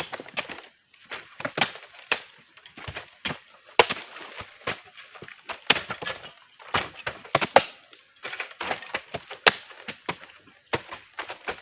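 Irregular run of knocks and thuds, sometimes several a second, from oil palm fresh fruit bunches being handled and tossed down during weighing.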